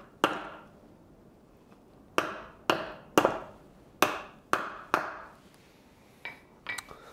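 Hand hammer's round face striking a hot steel leaf laid face down on a wooden block on an anvil, cupping it into a burned divot: about seven light blows, one near the start and a quick run of six between about two and five seconds in, each with a short ring. A few faint metallic clinks follow near the end.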